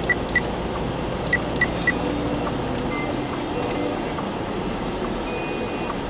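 Steady road and engine noise inside a Mercedes-Benz car on the move. There are short electronic beeps at the start and three more at about a second and a half, from the stereo's buttons being pressed to change tracks.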